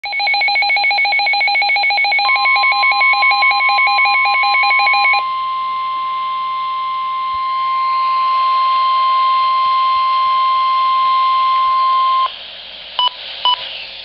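Midland NOAA weather radio alerting to a warning: rapid electronic beeping for about five seconds, with a steady single-pitch warning alarm tone starting about two seconds in and holding until about twelve seconds. Two short beeps follow near the end. The steady tone is the broadcast signal that a warning message is about to be read.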